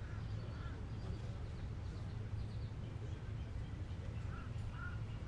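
A few short bird chirps, in pairs near the start and again about four and a half seconds in, over a steady low rumble of outdoor background noise.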